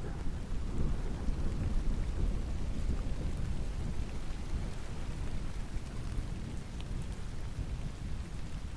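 Steady rain with a low rolling rumble of distant thunder underneath.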